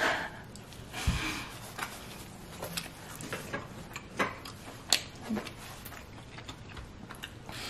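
Eating sounds of a person biting into a large slice of pepperoni pizza and chewing it: a noisier bite about a second in, then scattered sharp mouth clicks and smacks while chewing.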